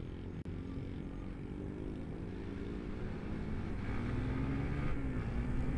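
Sport motorcycle engine running at low speed, heard from the rider's seat, its revs and loudness climbing gradually through the second half.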